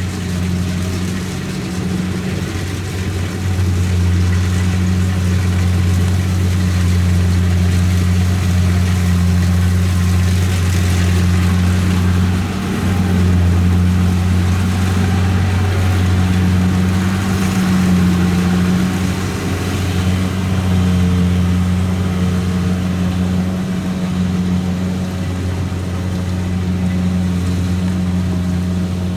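Kubota DC-70 rice combine harvester running steadily while harvesting, its diesel engine holding an even drone with only slight dips.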